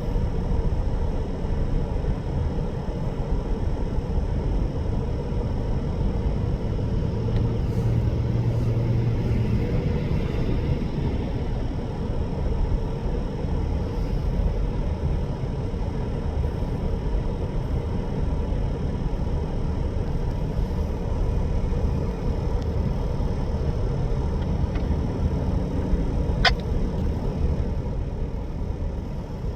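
EMD diesel-electric locomotives, an SD40-2 and a GP38, idling with a steady low rumble. A single sharp click comes near the end.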